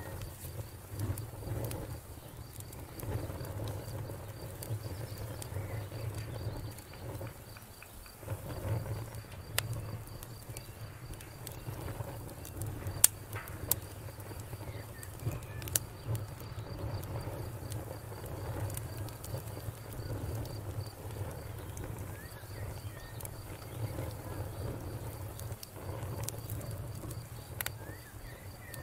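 Wood campfire crackling, with a sharp pop every few seconds over a low steady rumble, and a faint insect trill running throughout.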